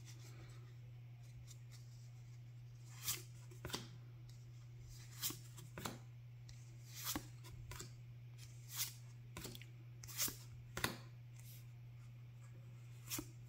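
Trading cards being flipped through one at a time in the hands, each card sliding across the stack with a short soft swish, about ten of them spread across the stretch. A steady low hum runs underneath.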